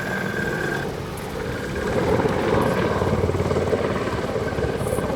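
WAH-64D Apache attack helicopter in flight, its rotor beating with a fast, steady pulsing that grows louder about two seconds in.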